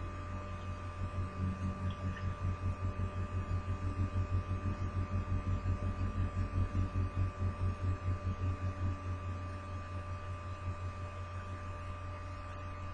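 Steady low electrical hum that pulses in a fast, even throb, with a faint steady high whine above it.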